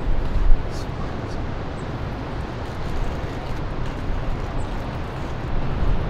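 Steady rushing roar of ocean surf and wind, with a brief thump about half a second in.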